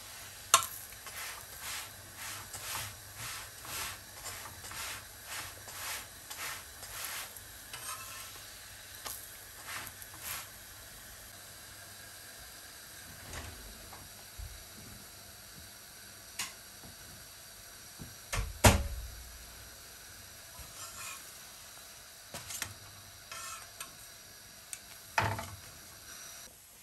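Ghee-brushed paratha sizzling steadily on a hot tawa. For the first ten seconds a metal spatula scrapes and presses it in quick strokes, about two a second. A few isolated knocks follow, the loudest a sharp clatter with a thud about two-thirds of the way through.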